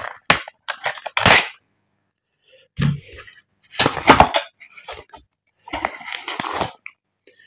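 Stiff white cardboard phone box being handled and pulled open right at the microphone: sharp crackling, snapping and scraping of card and paper in several short bursts with quiet gaps between.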